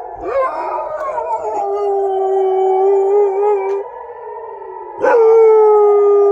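Dog howling along with an air-raid warning siren: one long, steady howl, then a second, louder howl starting about five seconds in. The siren sounds underneath.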